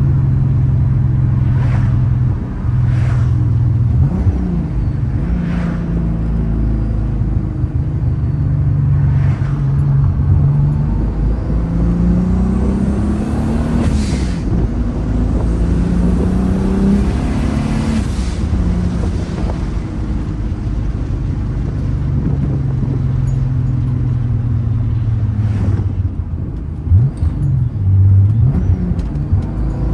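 Turbocharged VW VR6 engine and exhaust under way: the note drops and climbs with the revs, pulling up in pitch through the gears in the middle and again near the end, with a few short rushing sounds between.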